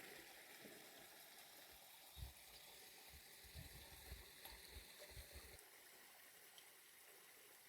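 Faint flowing water, with a few soft low thumps between about two and five and a half seconds in.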